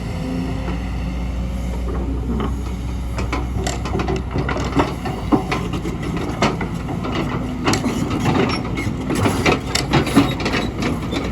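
Kobelco hydraulic excavator's diesel engine running steadily while rock and soil knock and clatter as the bucket digs into the hillside. The knocking grows busier a few seconds in.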